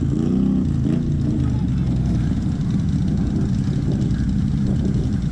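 Off-road vehicle engines running, with a rise and fall in engine pitch about a second in.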